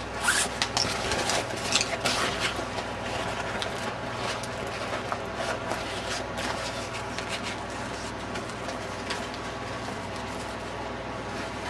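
Hands handling a 500-denier nylon pouch: fabric rustling and scraping with small clicks, busiest in the first half, over a steady low hum.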